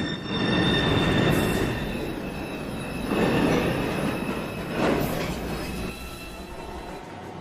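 New York City subway train running through the station: a heavy rumble of wheels on rail with a steady high-pitched wheel squeal over it. It swells several times and drops off about six seconds in.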